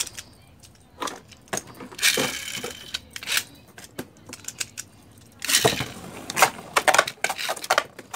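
Beyblade spinning tops and a ripcord launcher clicking and clattering, hard plastic and metal parts knocking together. There is a short rasp about two seconds in, and a denser run of clicks and knocks in the second half.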